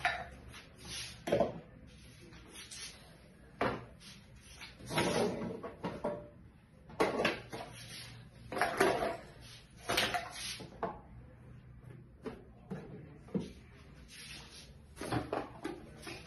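Irregular knocks and clatter of toiletry bottles, boxes and containers being picked up, moved and set down on wooden shelves, about a dozen bumps of varying loudness.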